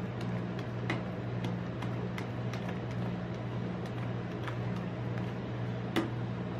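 Metal spatulas tapping and scraping on the steel freezing plate of a rolled ice cream machine as raspberry ice cream is spread flat: irregular light clicks, about one or two a second, with a sharper knock about six seconds in. A steady low hum runs underneath.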